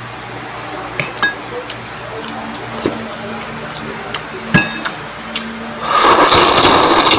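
Metal cutlery clinking against a bowl several times with short ringing clinks, then about six seconds in a loud slurp as a mouthful of food is sucked in off the spoon close to the microphone.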